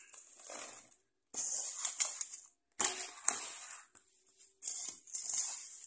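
A hand scooping and working a gritty potting mix of garden soil, rice hulls and animal manure in a metal basin: dry crunching and scraping in four short bouts, with a few sharp ticks of grit against the metal.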